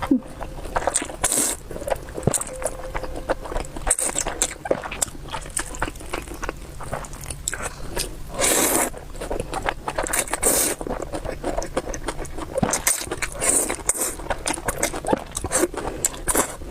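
Close-miked eating of stir-fried wide rice noodles: repeated wet slurps and chewing with small mouth clicks, the loudest slurps about a second in and around eight and ten seconds in.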